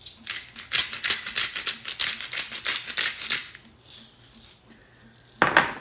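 Salt being dispensed over a raw whole chicken: a quick run of rasping, rattling strokes, about five or six a second for some three seconds, then one short loud rush of noise near the end.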